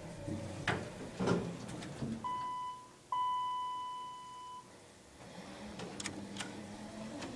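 Dover hydraulic elevator's electronic chime sounding twice as the car arrives, first a short tone and then a longer, louder one that fades out. A few clicks come before it, and a low hum starts near the end.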